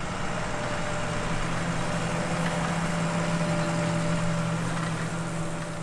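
A vehicle engine running steadily, with a constant low hum over a continuous mechanical noise.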